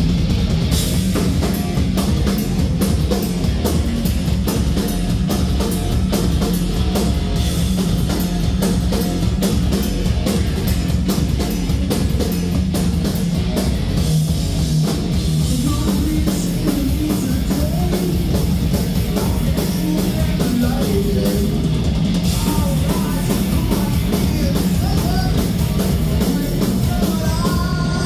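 A heavy metal band playing live, with electric guitars over fast drumming. The drum hits come thickest in the first half.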